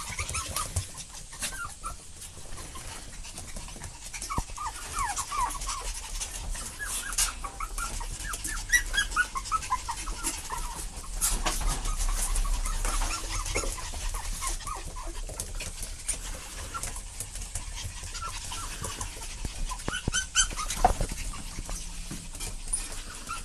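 Chihuahua puppies whimpering in many short, high calls that bend up and down in pitch, with scattered clicks and knocks.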